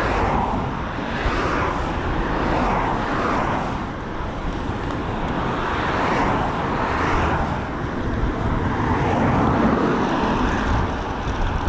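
Wind rushing over a GoPro action camera's microphone on a moving electric bike, with a heavy low rumble. The rush swells and eases unevenly every second or two.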